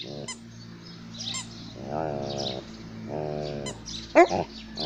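Alaskan malamute grumbling as it chews a toy: drawn-out vocal calls about half a second long, several times, with a sharper rising-and-falling call about four seconds in. A few short clicks come from teeth on the toy.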